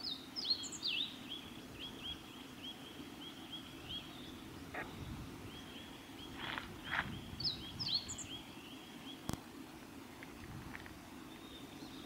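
Male meadow bunting singing: two short phrases of quick, varied high notes, one at the start and one about seven and a half seconds in, with runs of evenly spaced short chirps between them. A steady low hum lies underneath, and there is a sharp click about nine seconds in.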